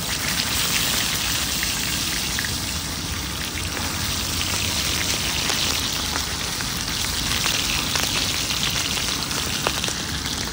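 Whole pomfret shallow-frying in hot oil on a large flat tawa: a steady, loud sizzle with scattered crackles, breaking out suddenly as the fish is laid into the oil.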